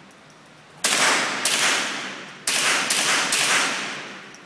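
Five shots from an AR-style rifle, one pair then a quick string of three, each followed by a long echoing decay off the walls of an indoor range.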